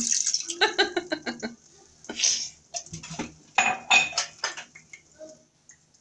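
Water poured into a stainless-steel cooking pot and a metal spoon clinking and knocking against the pot, with a cluster of ringing clinks a little past halfway.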